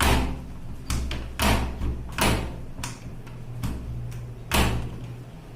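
Front-loading washing machine door being pushed shut and worked against its new door lock: a series of about six heavy clunks at uneven spacing, each with a short ring.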